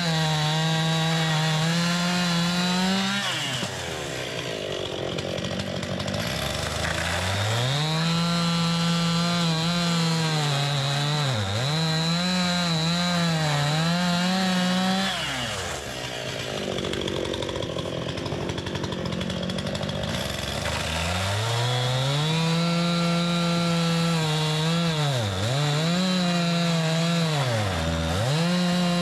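Two-stroke Stihl chainsaw at full throttle cutting through big red oak firewood pieces. It drops back toward idle twice between cuts, then revs up again, and its note dips briefly as it bogs in the wood. The cutting is slow, on a chain the owner thinks is near the end of its life.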